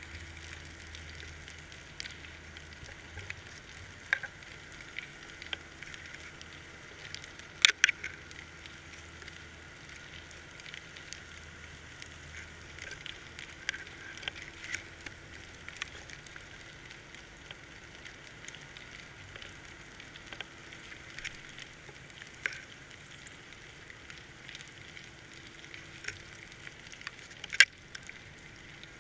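Underwater crackling and sizzling heard through a GoPro's waterproof housing, with scattered clicks and two sharp knocks, one about eight seconds in and one near the end.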